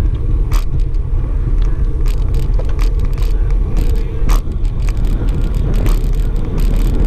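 Wind buffeting the microphone of a camera on a moving bicycle: a loud, steady low rumble, with road noise and scattered sharp clicks and knocks from the bike and its mount over the concrete.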